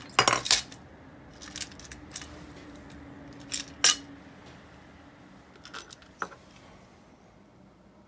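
Small metal parts of an Ambassadeur 1500C baitcasting reel clinking as they are handled and set down. The loudest clatter comes right at the start and again just before four seconds in, with lighter clicks at about one and a half and two seconds in and two more around six seconds.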